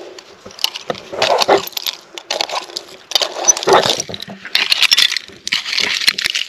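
A three-tined hand rake scraping through dirt, roots and buried debris in a bottle dump, in repeated strokes of gritty scratching with small hard clinks.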